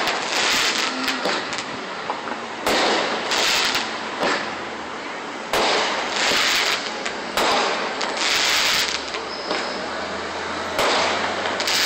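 Aerial fireworks shells bursting overhead in a series, about a second or two apart. Each sharp bang is followed by about a second of crackling as the glittering stars spread.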